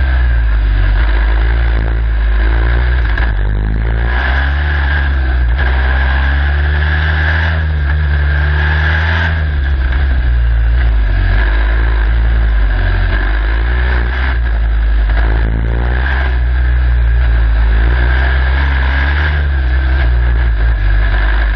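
Turbocharged Formula Student race car engine heard from onboard, running hard and repeatedly rising and falling in pitch as the driver accelerates and brakes through tight cone sections in low gears.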